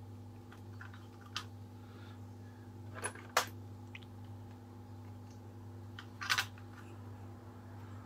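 A few sharp, scattered clicks and taps of metal tools and engine parts being handled on a workbench, over a steady low hum.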